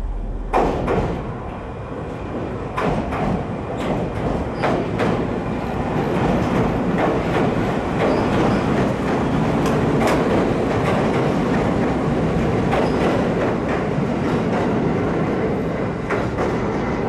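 JR Tsurumi Line electric commuter train passing close by on the Okawa branch: a steady rumble of wheels on rail, with sharp clicks mostly in the first few seconds, growing louder about six seconds in and holding to the end.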